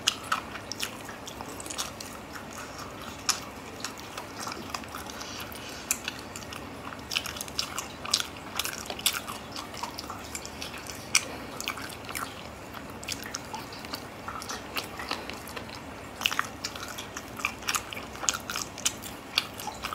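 Close-miked chewing and biting of spicy braised snail meat: wet mouth sounds with frequent irregular sharp clicks and smacks, along with fingers pulling the sticky pieces apart.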